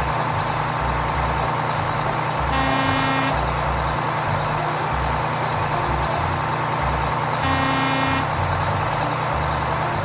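Semi truck engine running steadily with a low rumble, with two short horn honks, one about three seconds in and another about five seconds later.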